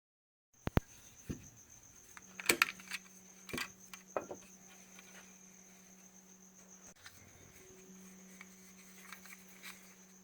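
Several sharp clicks and knocks, bunched in the first four seconds, over a faint steady high-pitched whine and a low hum.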